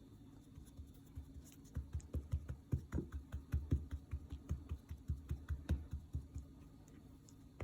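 Rapid soft, dull thuds of chicken pieces being pressed and tossed in a bowl of seasoned flour to coat them, starting about two seconds in and stopping near the end.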